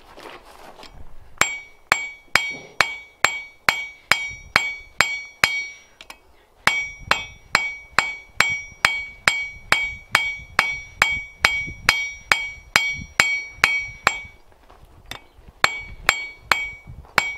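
Blacksmith's hammer striking a hot steel bar on an anvil, drawing it out to a taper: steady blows about two a second, each leaving a bright metallic ring. The hammering stops briefly after about five seconds and again near the end, then starts again.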